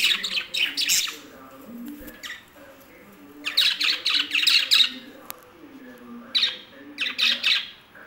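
Pet budgerigars chattering in bursts of sharp squawks and chirps, three bursts: near the start, around the middle and near the end.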